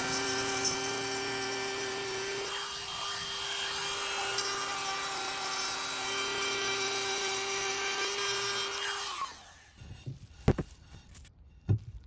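Compact trim router running at a steady high-pitched whine as it cuts a circle into a wooden board. It is switched off about nine seconds in and spins down, followed by two sharp knocks.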